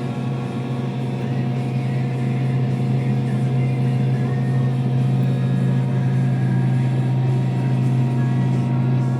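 Diesel engine of a Link-Belt 298 crawler crane running with a steady low drone, growing a little louder about a second in.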